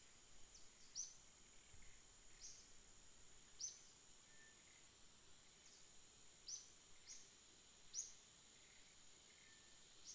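Faint natural ambience: a steady high insect drone, with short high chirps repeating irregularly, roughly one every second or so.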